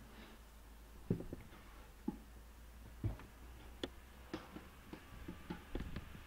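About a dozen small, irregular clicks and taps, unevenly spaced and coming closer together in the second half, over a faint steady hum.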